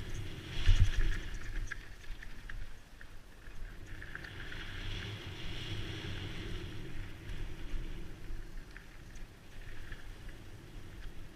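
Wind rushing over the microphone, swelling and easing, with a sharp knock and rattle about a second in.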